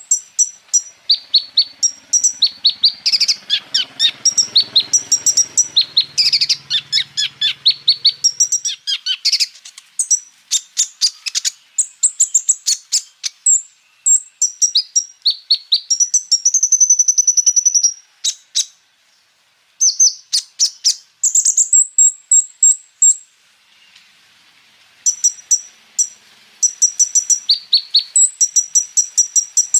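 Kolibri ninja (a sunbird) singing a fast, loud run of short, high, sharp chirps and rolling 'tembak' notes, with a brief trill past the middle and a couple of short pauses later on.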